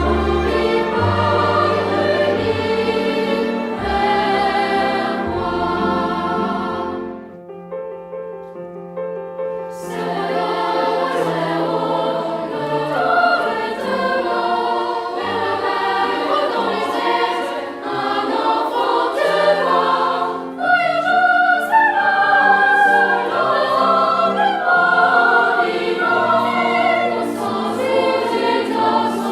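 Choral music, many voices singing together. About seven seconds in it drops to a quiet, thin passage for a few seconds, then the full choir comes back.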